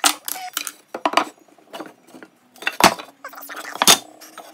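Wooden 1x4 boards knocked and set down on a workbench as they are laid out into a ladder-shelf frame: a few separate sharp wooden knocks, the loudest about three and four seconds in.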